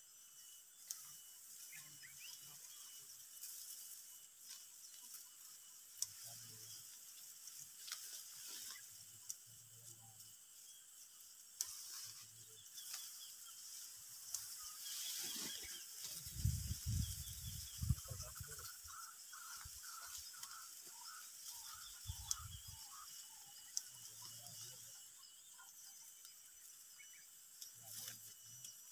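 Hill rice being harvested by hand, with scattered sharp clicks as the stalks are cut, against a steady high buzz of insects. A quick run of short chirps comes about two thirds of the way through, with a few low rumbles around the middle.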